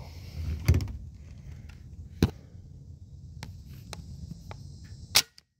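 Bug-A-Salt 3.0 spring-powered salt gun shooting. Three sharp snaps come about a second and a half and then three seconds apart, the last the loudest, with fainter clicks between them and a low steady rumble underneath.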